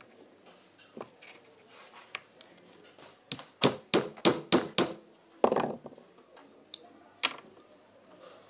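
Small hammer tapping a nail into a plastic bottle cap: five quick sharp strikes, a bit over three a second, then a short scrape.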